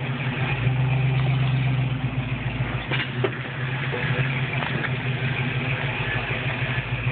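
Off-road 4x4's engine running steadily at low revs while crawling over an obstacle, with a couple of sharp knocks about three seconds in.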